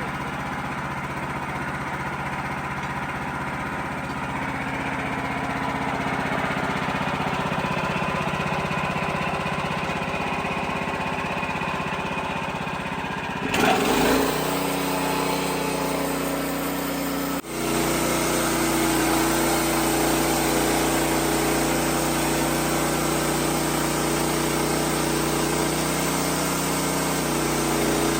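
Wood-Mizer LX55 bandsaw sawmill's engine running steadily. Around 14 seconds in there is a short louder rush. About 17 seconds in the sound briefly dips, then steps up to a louder, higher-pitched run.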